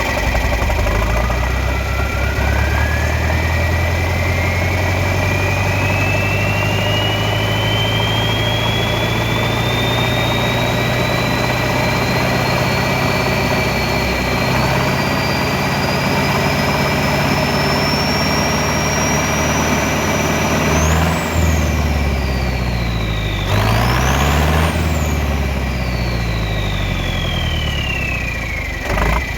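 John Deere 3010 Utility tractor engine running with a loud turbocharger whistle that climbs slowly and steadily in pitch for about twenty seconds while the engine note stays even. The engine is then throttled down and back up: the whistle drops, shoots up sharply, and falls away again near the end.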